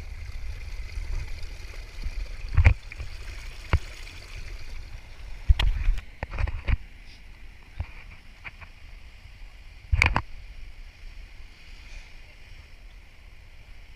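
River water running beneath a steady low rumble, broken by several sharp knocks, the loudest about ten seconds in.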